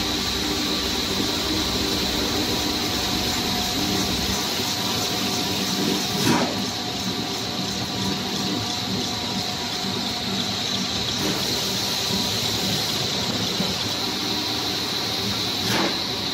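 Single screw snack-food extruder and its die-face rotary cutter running: a steady mechanical din with a high, even whine over a low hum. Two short knocks stand out, about six seconds in and near the end.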